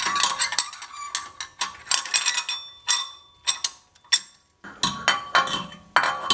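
Metal parts clinking and rattling against each other, an irregular string of sharp clinks with brief ringing, easing off for a moment a little past halfway. These are the metal parts of a BMW E46 M3's rear wheel assembly being handled and checked for tightness.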